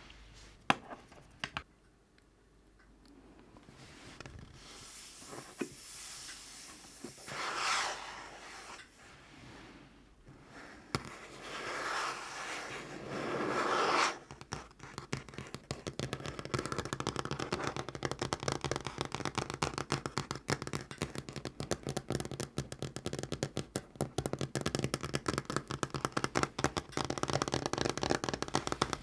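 Fingernails on a tabletop: a few single taps and swelling scraping, rubbing sounds, then from about halfway a fast, continuous run of nail tapping.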